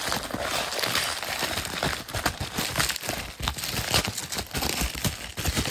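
Packaging crinkling and rustling with many short crackles as it is worked open by hand.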